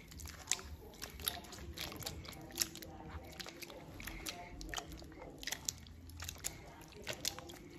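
A hand squeezing and kneading grated coconut in water in a plastic bowl to press out coconut milk: an irregular run of small wet clicks and splashes.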